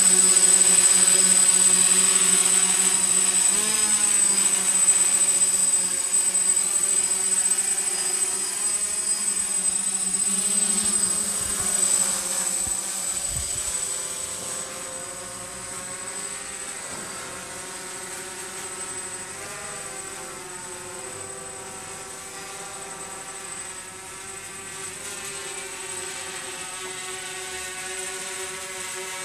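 DJI F550 hexacopter's six brushless motors and propellers buzzing with a high-pitched whine, the pitch wavering briefly a few times as the motors change speed. The sound fades over the first half as the drone climbs away, then holds steady.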